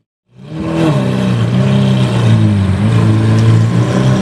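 Lamborghini Aventador SV's V12 engine running at low revs as the car drives off, a steady low note that rises and dips slightly. It comes in a moment after the start, following a brief silence.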